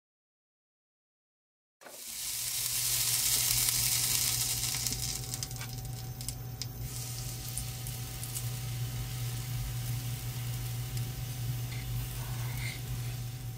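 Fat sizzling in a hot cast-iron skillet while pancakes fry, a dense steady hiss that starts suddenly about two seconds in after silence and is loudest just after it starts. A low steady hum runs underneath.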